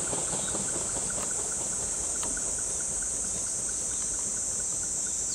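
Cicadas droning steadily at a high pitch, over a faint low rumble from the freight train fading into the distance.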